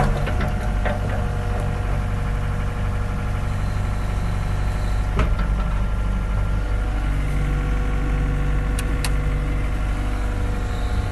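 Diesel engine idling steadily, with one sharp click about halfway through and two faint ticks a little later.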